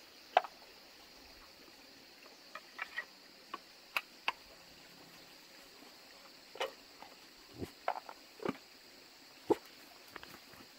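Scattered light clicks and knocks of chestnuts and a metal cooking pot being handled, the sharpest about half a second in, with a few footsteps near the end. A faint steady high insect drone runs underneath.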